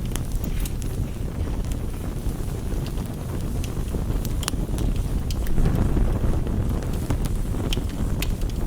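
Rain on a window mixed with a crackling campfire: a steady low rushing noise with scattered sharp crackles and taps, swelling briefly just past the middle.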